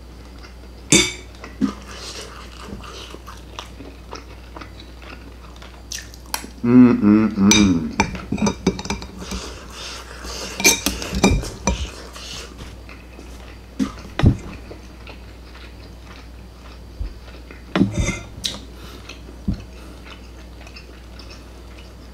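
Metal fork and knife clinking and scraping on ceramic plates, with close-up chewing of meat, coming in scattered bursts. A short hummed voice sound comes about seven seconds in.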